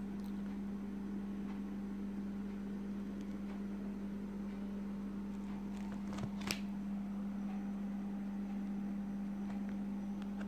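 A steady low hum over faint room noise, with two short clicks about six seconds in.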